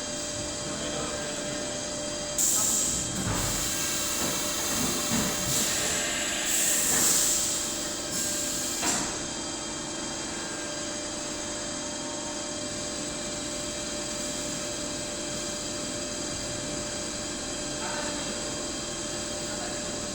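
CNC lathe running with a steady hum and several held whining tones while machining an aluminium block. From about two seconds in until about nine seconds in, a louder, uneven hissing noise rises and falls over it. After that the lathe settles back to its steady running.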